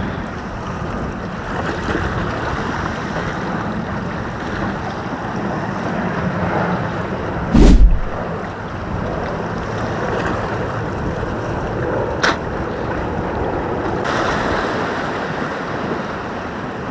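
Sea waves washing against the rocks of a jetty, with wind buffeting the microphone. A loud low thump about eight seconds in and a short sharp click a few seconds later.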